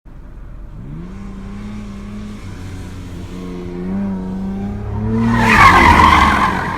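A car engine running, its pitch sweeping up about a second in and then holding steady, with a loud rush of noise near the end as the car goes by.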